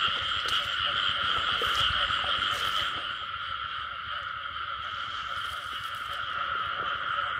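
A dense, steady chorus of many frogs calling at once, merging into a continuous drone: a breeding chorus after the season's first rain.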